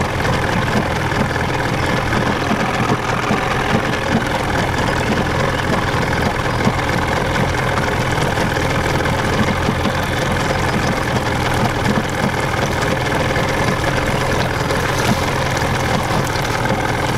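Small tiller-steered outboard motor on a jon boat running steadily at low speed.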